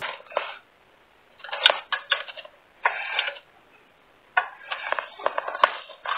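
Endoscope camera's magnet-tipped probe scraping and clicking against the inside of a sink drain pipe, in irregular bursts of rattling with a couple of sharp clicks. It is heard through the endoscope's own small microphone, which makes it thin and muffled.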